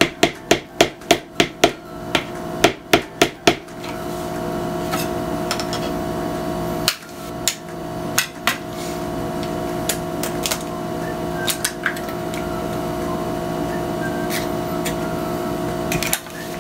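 Eggs being beaten with a utensil in a mixing bowl: quick clicking taps against the bowl, about three or four a second, for the first few seconds. After that only scattered light clicks over a steady hum.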